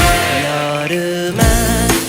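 Background pop music with a sung melody and steady bass.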